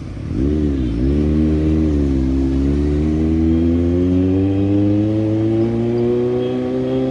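Kawasaki Z900's inline-four engine and exhaust under acceleration: the revs rise and dip about a second in, then climb slowly and steadily for several seconds.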